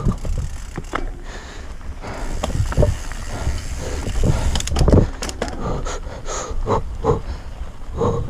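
Mountain bike descending a dirt singletrack: the knobby tyres rumble over the dirt and the bike knocks and rattles irregularly over bumps.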